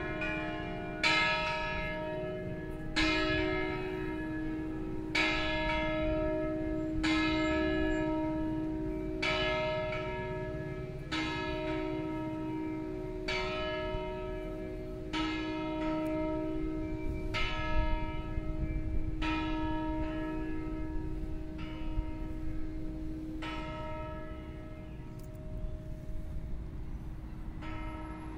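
Three church bells of a five-bell Veronese-style ring, tuned E-flat, F and G, ringing a festive peal. Strikes come about once a second over a steady ringing hum, then fade near the end as the bells die away.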